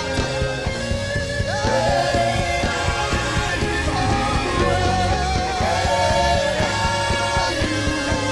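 Live gospel worship music: a band playing with a singing voice held over it.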